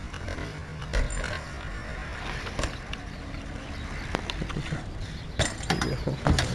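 Scattered clicks and knocks from BMX bikes being handled, with a cluster of sharper knocks near the end, over a steady low rumble.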